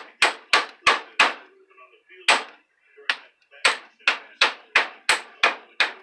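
Ball-peen hammer striking a microwave-oven transformer in a string of about fourteen sharp, ringing blows, roughly three a second, with a short pause near the start. The blows are driving a tight-fitting winding along the transformer's laminated core.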